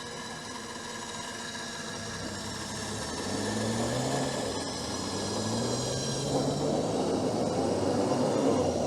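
Vehicle winch running under load as it pulls a car stuck in mud, with a steady whine, and an engine revving up and down underneath. The sound grows steadily louder.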